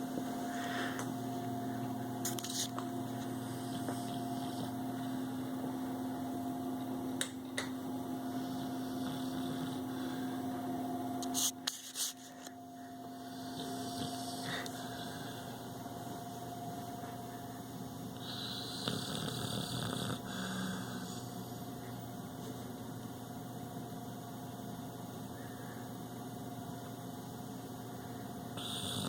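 Pit bull snoring in his sleep, with a snore about two-thirds through and another starting near the end, over a steady electrical hum. A few sharp clicks sound just before the middle.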